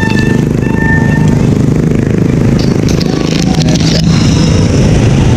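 Motorcycle and car traffic on a city street, heard from a moving bicycle over a loud low rumble. A steady high tone sounds twice in the first second and a half, and a few sharp clicks come about three and a half seconds in.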